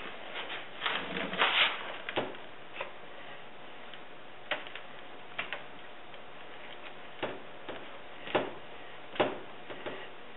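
Irregular light clicks and knocks a second or more apart, with a short scraping rustle about a second in, from objects being handled by hand.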